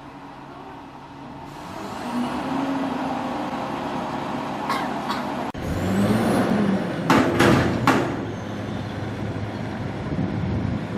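Garbage truck engine running, with several short sharp hisses of its air brakes about seven to eight seconds in.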